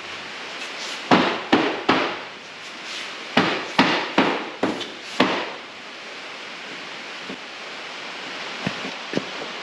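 Hammer blows, likely on wood: three quick strikes about a second in, then a run of five more, followed by two light knocks near the end.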